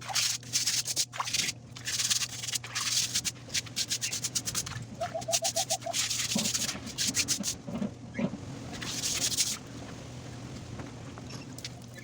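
Sneakers being scrubbed by hand in bursts of rapid back-and-forth strokes, stopping a few seconds before the end.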